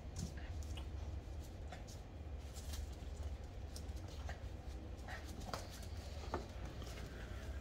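A Shih Tzu puppy and a kitten play-fighting on a hard floor: irregular clicks and scuffles of paws and claws on the boards.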